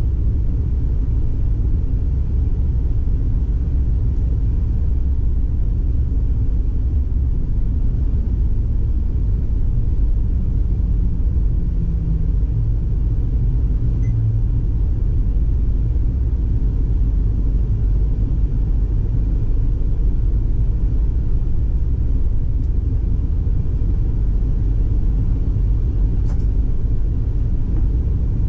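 PESA Twist II 2010N tram running, a steady low rumble heard from inside the driver's cab.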